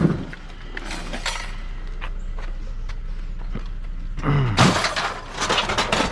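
Clattering and rattling of loose curbside junk being picked up and handled. A dense run of clatter comes about four seconds in.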